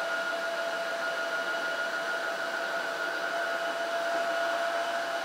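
Tineco Floor One S7 Steam cordless wet-dry floor washer running steadily in automatic mode, with its suction motor giving a constant whine at two steady pitches.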